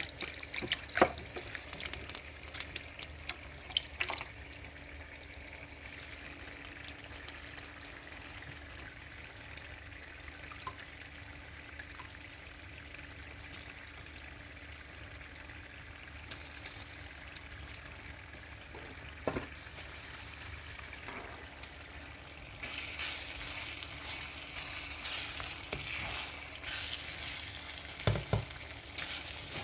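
Bolognese sauce frying in a pan with a steady sizzle, broken by a few sharp clacks of a utensil against the pan. About 23 seconds in the sizzle turns louder and crackly.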